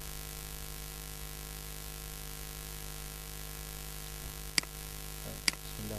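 Steady electrical hum and buzz from the recording setup, with two sharp computer mouse clicks about a second apart near the end.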